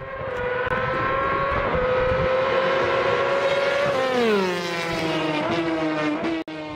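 Racing engine sound effect held at high revs. Its pitch drops sharply about four seconds in, then holds at a lower note.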